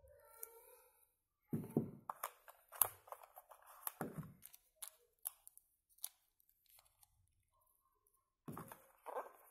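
Hands handling a plastic phone charger and the cardboard inner tray of the phone box: a run of sharp clicks, taps and rustles with a few dull knocks, then quiet, then more handling noise near the end.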